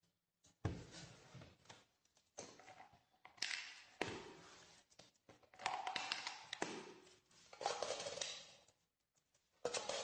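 Irregular taps, knocks and rustling as a lovebird handles small objects on a tabletop. The bursts last up to about a second each, with short gaps between them.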